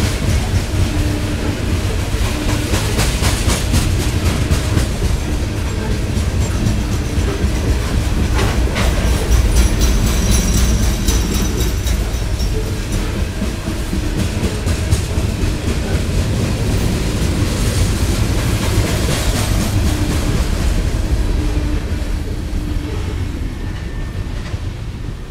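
CSX coal train's hopper cars rolling through a grade crossing, with steady rumbling and wheels clacking over the rail joints. The last car passes near the end and the noise eases.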